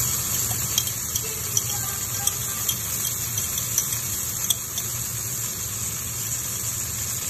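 Dried red chilies sizzling in hot oil in a wok: a steady high hiss with a handful of small sharp pops in the first half, over a low steady hum.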